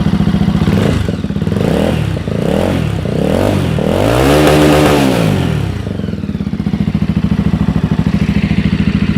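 Honda CB300 motorcycle engine running through a 2-into-1 exhaust with no muffler: it idles with a steady pulsing note, gets several quick throttle blips about a second in, then one longer rev around the middle, and settles back to idle.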